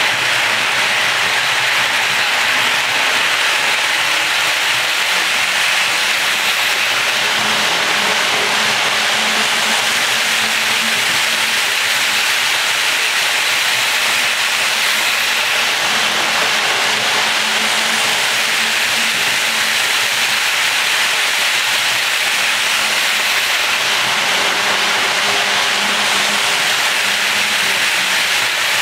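HO-scale model train coaches rolling past close by on the layout track: a steady, unbroken rushing noise of small metal wheels running on the rails.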